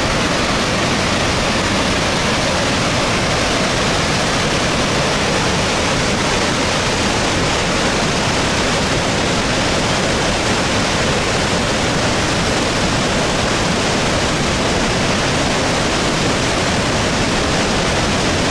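Steady rush of Augrabies Falls on the Orange River in heavy flood, about 2800 cubic metres of water a second pouring into the gorge.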